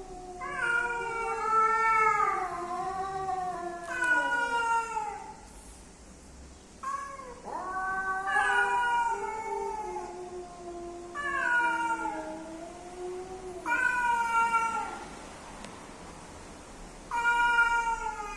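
Cats caterwauling: about five long, drawn-out yowls with wavering pitch that bends up and down and falls away at the ends, one after another with short pauses. These are the mating calls of a male and a female cat together.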